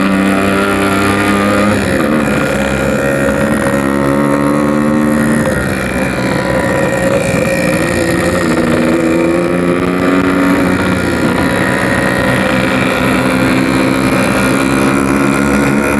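Yamaha RX-King two-stroke single-cylinder motorcycle engine running under way, its pitch dropping a couple of seconds in, then rising again and holding steady as the throttle changes. Wind noise on the microphone.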